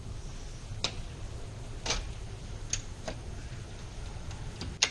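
Scattered light clicks and taps of small metal hardware and tools being handled at the edge of a door during flush bolt work, about five in all, the sharpest just before the end. A low steady rumble runs underneath.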